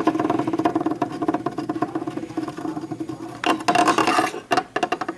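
Beyblade spinning top whirring on the ground after a string-launcher launch: a steady humming spin with a fast fine rattle. It is broken by a few sharp knocks past the middle, as the top wobbles and clatters.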